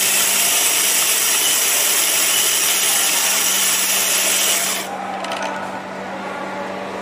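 Electric espresso grinder running, grinding coffee beans into a portafilter with a steady motor hum under the grinding noise. About five seconds in the grinding noise drops to a quieter whir.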